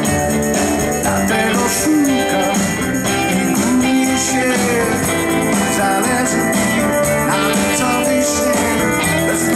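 Live band playing at a steady loud level, with an electric guitar over keyboards, bass and drums.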